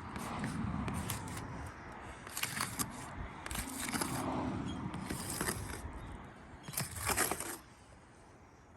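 Several short scrapes and rustles of roof shingles being handled, with a low rumble underneath.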